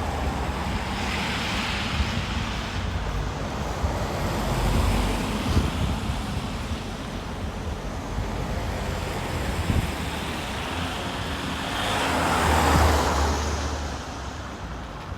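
Wind buffeting the phone's microphone over steady road traffic noise, with a louder swell near the end as a vehicle goes by.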